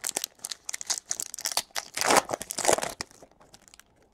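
Plastic trading-card pack wrapper crinkling as it is pulled off the cards, then the cards being slid and flipped through by hand: a quick run of rustles and clicks, busiest about two to three seconds in.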